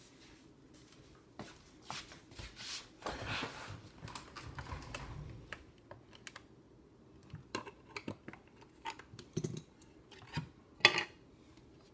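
Plastic clicks and rattles as the 7.4 volt battery pack is taken out of a handheld graphical multimeter's case. There is a stretch of rubbing and scraping about three seconds in, and one sharp, loud click near the end.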